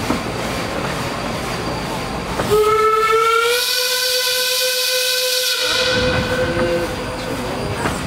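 Miniature steam train running, with its whistle blown once: a single steady pitched blast of about four seconds that starts about two and a half seconds in, rising slightly at first, over the steady rumble of the ride.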